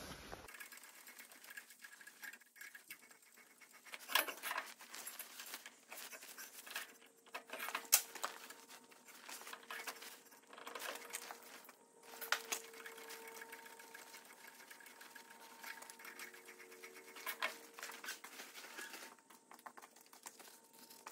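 Bench pillar drill running with a faint steady hum as an M10 tap in its chuck starts threads in the bolt holes of a welded steel riser block. Scattered sharp clicks and knocks come through the hum.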